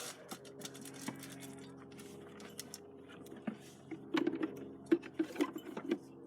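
Scattered sharp clicks and knocks, coming thick and fast for a couple of seconds near the end, over a steady low hum.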